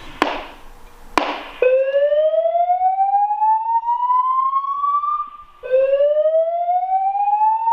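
Fire alarm voice-evacuation speaker sounding its whoop evacuation signal: after two sharp clicks, a tone sweeps slowly upward in pitch over about three and a half seconds, then starts low again and sweeps up a second time. It is the fire signal that alternates with the recorded announcement to leave the building.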